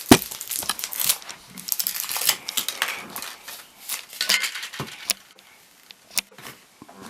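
Foil wrapper crinkling and sharp clicks and cracks of a Kinder Surprise chocolate egg and its plastic capsule being unwrapped and opened by hand, with one loud click just at the start.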